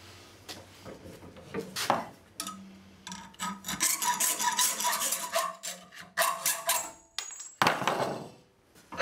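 Metal clanks and scraping from hand work on a steel blacksmith's post vise: a few separate knocks, then a run of rasping strokes in the middle, and a loud clank near the end.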